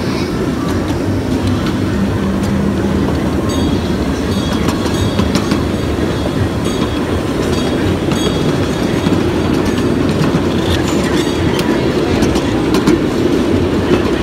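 Ride-on miniature railway train running along its track: a steady rumble of the cars with wheels clicking over the rail joints.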